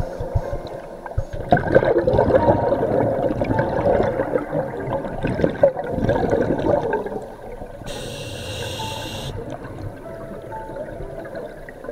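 A scuba diver breathing through a regulator underwater: exhaled bubbles gurgle for about five seconds, then a short hiss of inhalation comes about eight seconds in.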